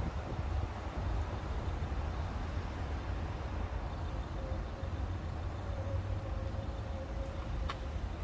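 Steady low rumble of road traffic, with a faint steady hum for a few seconds in the second half and a single click near the end.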